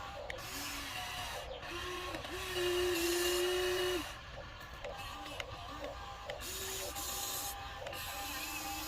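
Small electric motors of a radio-controlled toy construction vehicle whining in short start-stop runs, the pitch rising as each spins up and dropping as it stops. The longest and loudest run comes about two and a half seconds in and lasts about a second and a half.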